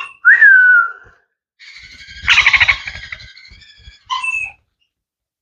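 Young sun conure calling: a harsh, raspy screech about two seconds in and a shorter squawk a little after four seconds. A short falling whistled note comes first.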